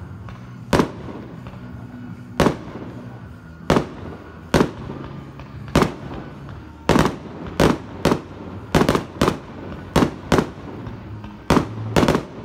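Aerial fireworks bursting: a string of sharp bangs at uneven intervals, coming faster and closer together in the second half.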